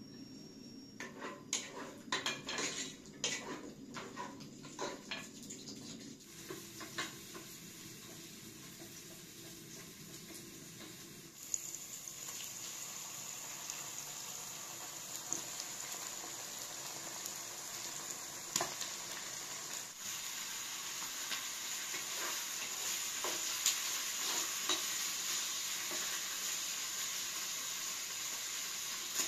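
Sliced onions frying in oil in a pot on a portable gas stove: a steady sizzling hiss that sets in a few seconds in, jumps up about a third of the way through and then slowly grows louder as the oil heats. Over the first few seconds come scattered clinks and knocks of a spoon and dishes, with now and then a click of stirring.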